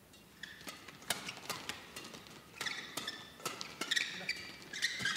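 Badminton shuttlecock struck back and forth by rackets in a fast doubles rally: a quick, irregular run of sharp hits, with short squeaks of court shoes between them.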